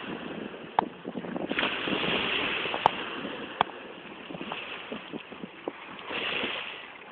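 Sea water splashing with wind noise on the microphone, swelling into a loud hiss about a second and a half in and again near the end, with a few sharp clicks.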